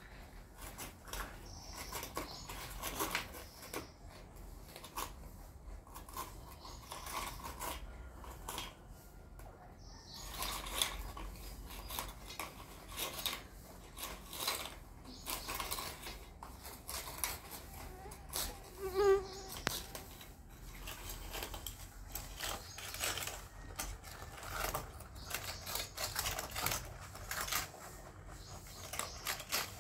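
Several rabbits crunching biscuits off a steel plate: a dense run of quick, irregular crunchy clicks. A brief pitched call sounds about two-thirds of the way through.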